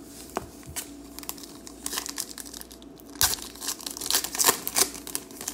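Foil trading-card pack wrapper being torn open and crinkled by hand: scattered crackles at first, then a denser, louder burst of crinkling about four seconds in as the wrapper is ripped apart.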